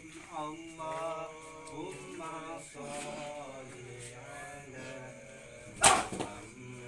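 A voice chanting in long, drawn-out melodic lines, like a recited prayer or mantra, with one sudden loud burst about six seconds in.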